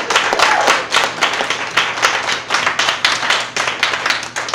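Audience applauding at the end of a spoken-word poem, with a short cheer about half a second in; the clapping slowly dies down.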